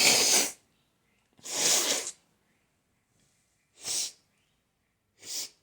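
A person sneezing in a rapid run: four breathy sneezes, the first two loud and longer, the last two shorter and fainter, with short pauses between, the kind of sneezing fit brought on by allergies.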